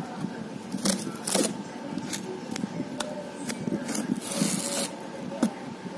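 Knife blade scraping and cutting through packing tape and corrugated cardboard on a box, in short strokes with scattered sharp clicks and a longer scrape about four seconds in.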